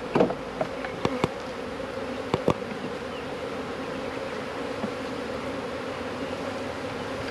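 Honeybees buzzing steadily over an opened hive, with a few sharp clicks in the first two and a half seconds.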